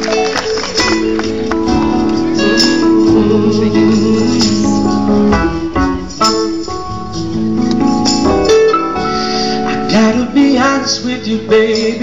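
Live band music: electric keyboard chords and acoustic guitar backing a man singing lead into a microphone, with light percussive ticks.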